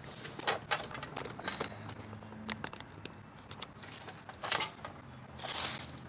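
Handling noises: scattered light clicks and taps, with a louder rustle about four and a half seconds in and another near the end, over a faint low hum.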